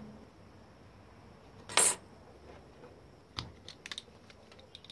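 Wire cutters snipping once through the hair dryer's mains cord, about two seconds in, followed by a few light clicks of metal tools and wire ends being handled.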